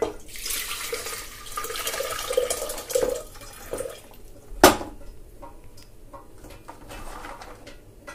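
Water pouring from a steel bowl into an empty aluminium pressure cooker, splashing for about four seconds. Then one sharp knock against the cooker, followed by soaked kidney beans tumbling in with light scattered clicks.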